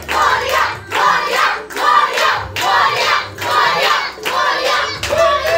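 A group of adults and children chanting loudly together in a devotional chant to Ganesh, clapping their hands in a steady rhythm.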